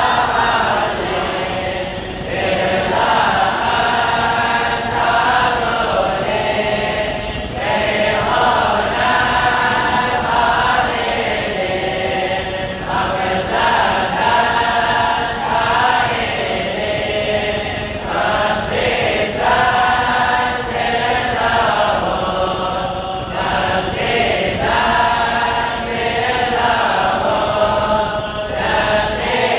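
A group of voices chanting together in unison, an Islamic devotional chant sung in repeating melodic phrases of a few seconds each.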